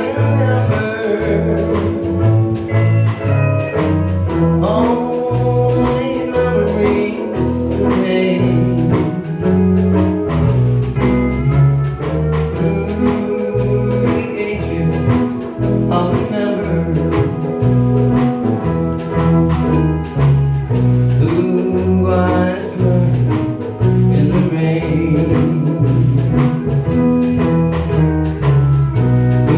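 Live country band playing a slow ballad: electric bass, pedal steel guitar, keyboard and guitar.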